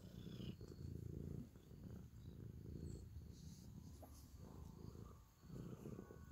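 Domestic cat purring close up while being stroked: a low purr in swells of about a second, rising and falling with its breathing.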